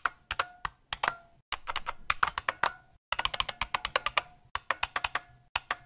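Typing on a computer keyboard: quick runs of key clicks separated by short pauses.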